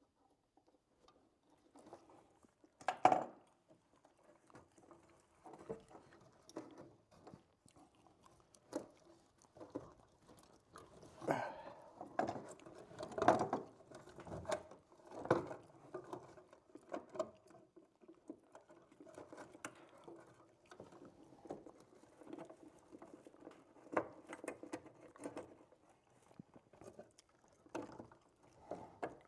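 Close-up handling noise of an electrical outlet being wired: scattered clicks, taps and scratchy rustling of wire and fittings, with one sharp knock about three seconds in.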